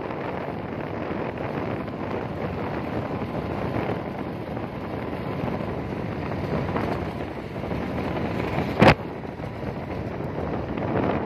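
Steady wind buffeting the microphone of a vehicle moving along a road, with one sharp knock about nine seconds in.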